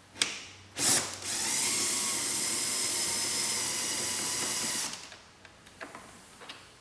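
Cordless drill/driver with a Torx T30 bit running steadily for about four seconds, backing a door-panel screw out, with a couple of clicks as the bit is set on before it starts.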